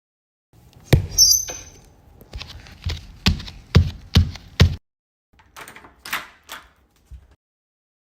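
Home-made foley sound effects: a loud knock with a short high squeak, then five heavy thumps about half a second apart, then a few softer rustling scrapes and a small tap.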